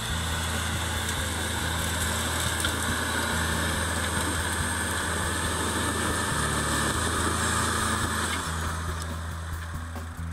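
A lifted four-wheel-drive off-roader's engine running steadily as it crawls up a sandy slope.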